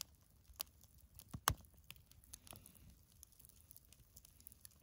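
Small campfire of split kindling crackling as it catches, with irregular faint crackles and a few sharper pops, the loudest about a second and a half in.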